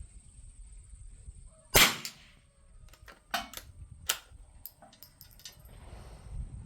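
A single .22 rimfire rifle shot from a 1932 Winchester Model 52 bolt-action target rifle about two seconds in, with a short ringing tail. It is followed by a quick run of much lighter metallic clicks as the bolt is worked to eject and reload.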